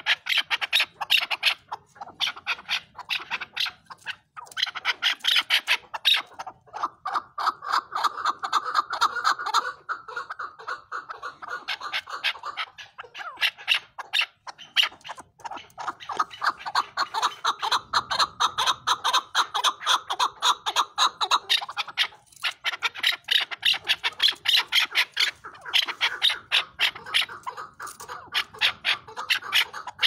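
Chukar partridge calling in long runs of rapid repeated notes, several a second, with a few brief breaks.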